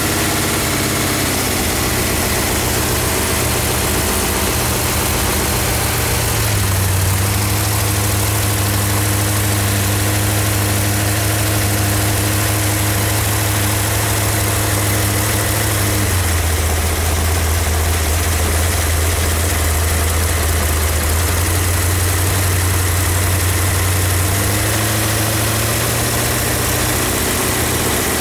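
Jet boat's 458 Chevy big-block V8 running through open headers at low speed, its pitch dropping about a second in, picking up around a quarter of the way through, dropping again past the middle and rising near the end as the throttle changes. The uploader says this engine has broken a roller rocker.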